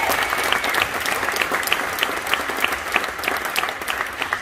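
Audience applauding, a dense patter of hand claps with some single claps standing out.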